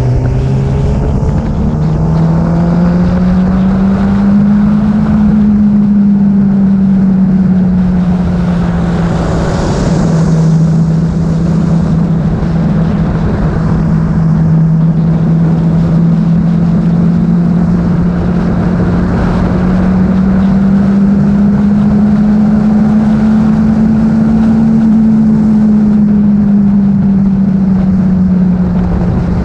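Engine running at highway cruising speed, its note drifting slowly up and down, with wind rushing over the microphone.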